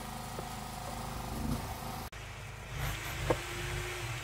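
A steady low engine-like rumble, broken by a sudden brief dropout about two seconds in, with a short sharp sound a little over three seconds in.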